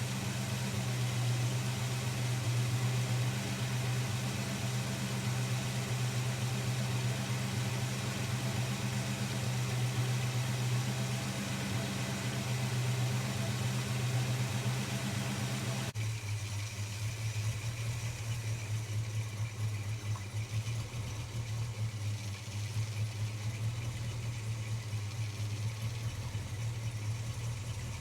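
Holden HK car engine idling steadily. Its ignition is not yet timed and it is not running quite right, which the owner partly puts down to the wrong coil. About two-thirds of the way through, the sound changes abruptly and the idle hum drops lower.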